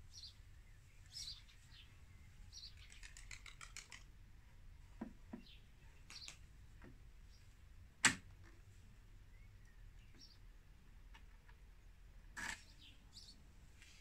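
Clicks of an e-bike battery being fitted back into the down tube of a Specialized Tero frame: a quick run of small clicks about three seconds in, one sharp click about eight seconds in as it latches, and a softer click near the end. Birds chirp faintly in the background.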